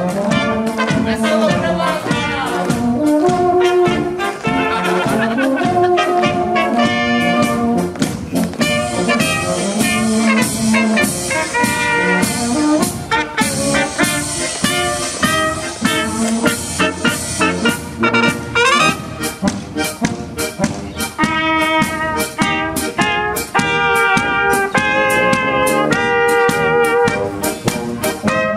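Small marching brass band playing a tune with a steady beat, tubas carrying the bass line under trumpets.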